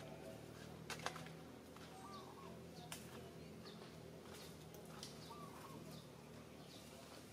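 Faint outdoor ambience with scattered short bird chirps and warbles, and a couple of sharp clicks about one and three seconds in.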